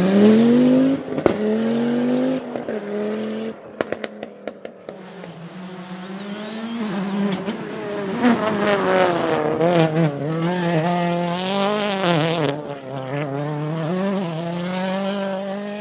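Rally car engine driven hard through the stage: it revs up and holds, fades with a few sharp cracks about four seconds in, then grows louder again with its pitch rising and falling as the throttle is worked, with a burst of hiss near twelve seconds.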